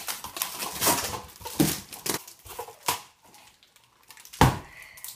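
Large cardboard TV carton being handled: a series of short rustles and scrapes of cardboard, with a sharp knock about four and a half seconds in.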